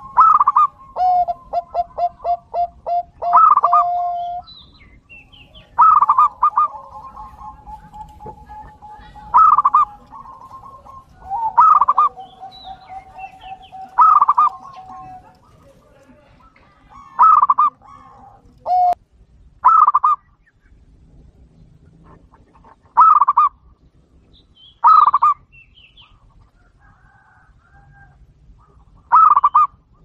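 Doves calling: loud short calls repeated every two to three seconds, with a quick run of about nine notes near the start and long steady tones between the calls in the first half.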